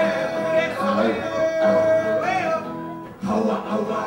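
Live rock band music with electric guitar under one long held note. The note bends up and the music winds down about two and a half seconds in, and voices come in near the end.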